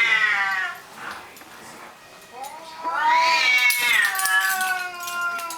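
Domestic cats in a territorial standoff, yowling threateningly. A long drawn-out warning yowl falls away in the first second. After a short lull, a second yowl rises, peaks and is held for about three seconds as it slowly falls.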